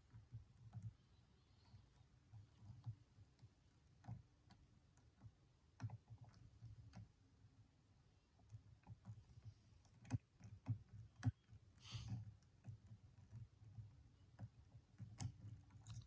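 Faint, irregular clicks and ticks of a lock pick and tension wrench working the pins inside a Stanley padlock's cylinder. The clicks come more often in the second half, with a brief rustle about three-quarters of the way through.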